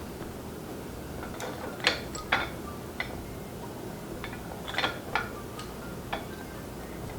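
Light clicks and taps of metal pen-kit parts being handled and fitted while the top of a bolt-action pen kit is pressed into its barrel: about half a dozen sharp ticks, the loudest two seconds in, over a low steady background hum.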